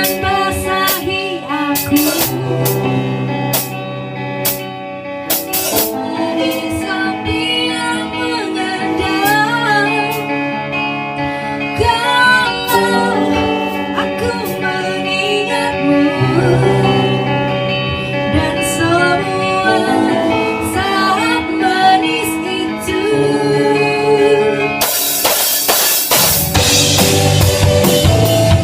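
A song with singing over guitar; about 25 seconds in, a full drum kit with cymbals comes in and the music gets louder.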